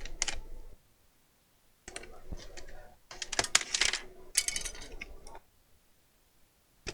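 Clicks, taps and small rattles of a laptop's plastic casing being handled as its back cover is taken off. They come in short clusters between about two and five and a half seconds in, with quiet gaps around them.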